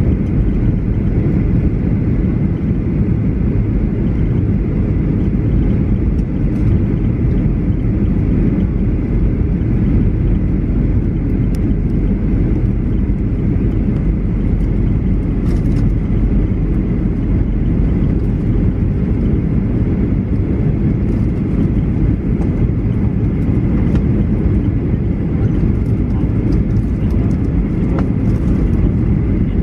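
Cabin noise inside a Boeing 737-800 descending on approach: the steady, low rumble of its CFM56 engines and the airflow over the fuselage, even and unbroken throughout.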